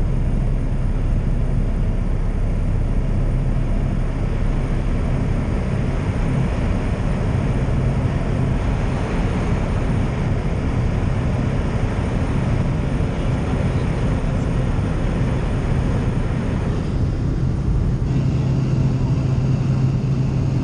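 Small single-engine propeller plane running at takeoff power, heard from inside the cabin: a loud, steady engine-and-propeller drone with a low hum, through the ground roll on a grass strip, lift-off and climb.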